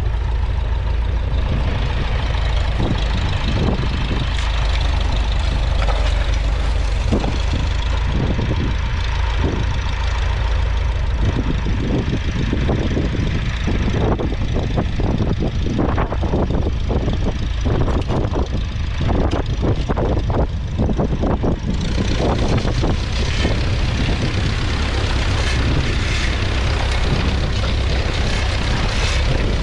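1961 Massey Ferguson 35's 2.3-litre four-cylinder diesel engine running steadily under load, pulling a two-furrow mounted plough through the ground, with many short knocks and rattles over it. A hissing noise joins in about two-thirds of the way through.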